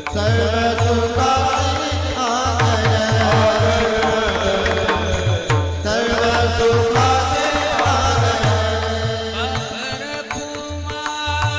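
Marathi devotional kirtan singing of an abhang: a male voice holds long, ornamented notes over a steady drone, with a hand drum beating a continuous rhythm.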